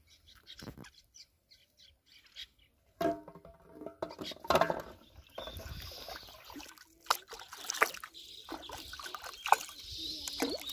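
Water splashing and sloshing as a person moves about in shallow pond water, with scattered sharp knocks. Birds chirp in the background through the second half.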